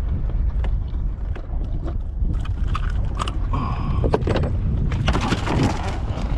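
Wind rumbling on the microphone, with scattered clicks and knocks throughout and a burst of rushing noise about five seconds in.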